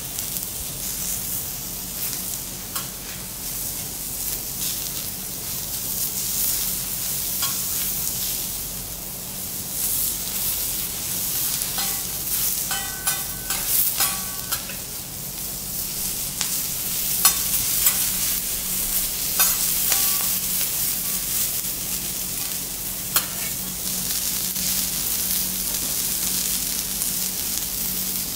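Vegetables sizzling steadily on a teppanyaki steel griddle, with metal spatulas clinking and scraping against the plate, most often around the middle.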